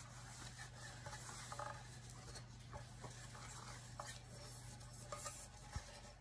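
Faint rustling and scraping of a paper towel picking up softened butter from a bowl, with a few light taps, then wiping it around a cake pan near the end. A low steady hum sits underneath.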